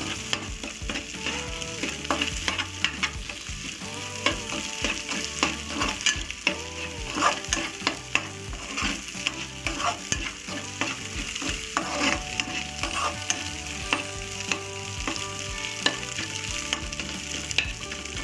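Eggs sizzling in hot oil in an aluminium pressure-cooker pan while a spatula stirs and breaks them into small pieces, with frequent scrapes and knocks against the pan.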